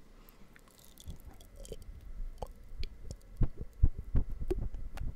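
Wet mouth clicks and smacks made right up against a microphone, irregular and getting louder from about three seconds in, with low thumps under them.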